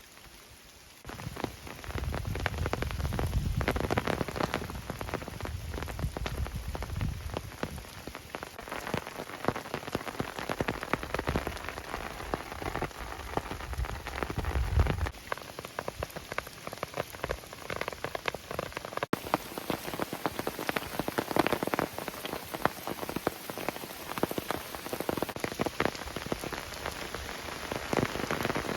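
Rain falling, many separate drops hitting a surface close by, starting about a second in. A low rumble sits under it for the first half and stops about fifteen seconds in.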